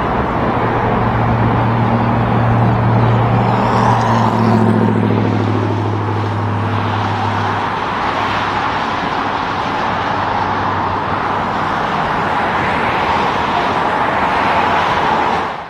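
Highway traffic: a heavy truck's diesel engine drones steadily for about the first half over a constant hiss of tyres on the road. The tyre noise swells again later and fades out at the very end.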